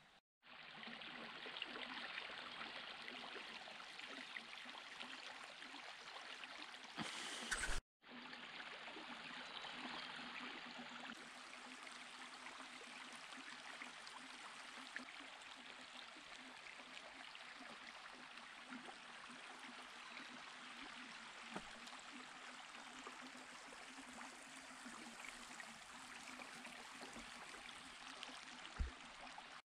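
Faint, steady rush of running water, with a sharp click and a brief dropout about eight seconds in.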